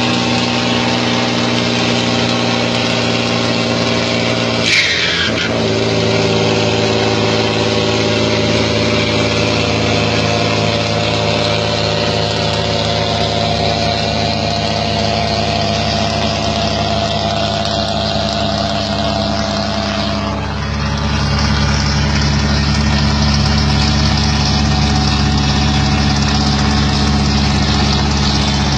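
Heavy truck engine running steadily under load at road speed. A brief falling whistle comes about five seconds in, and the engine note deepens and grows fuller from about twenty seconds in.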